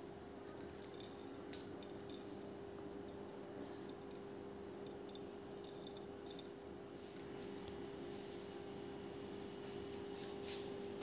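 Quiet room tone with a steady hum. Scattered faint clicks, one sharp click about seven seconds in, and a short rustle near the end.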